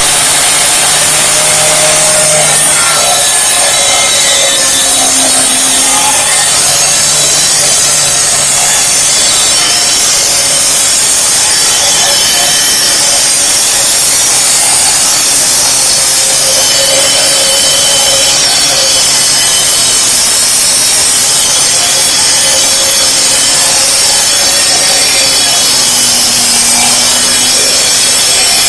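Concrete saw cutting into concrete: loud and continuous, with a motor hum that wavers slightly in pitch under the grinding hiss.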